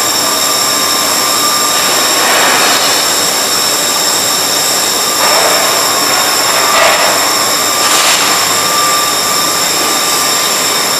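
Forging-plant machinery running: a steady loud hiss with several high whining tones, swelling into louder hissing surges about two, five and eight seconds in.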